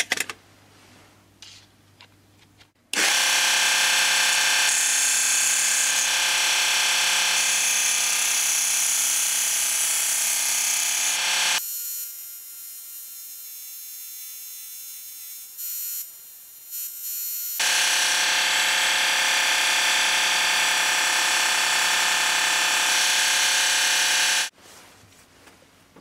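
Small electric belt sander running with a steady motor whine. It starts about three seconds in, drops much quieter for about six seconds in the middle, comes back, and stops near the end.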